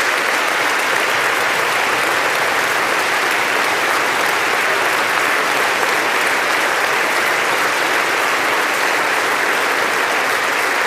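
Audience applauding, a dense steady clapping that holds at an even level without a break.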